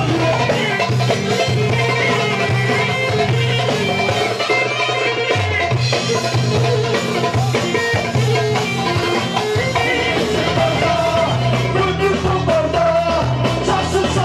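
Upbeat dance music from a live band: a steady beat and bass line under a running melody.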